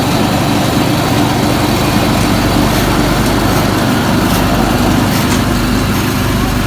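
A motor engine running steadily at idle.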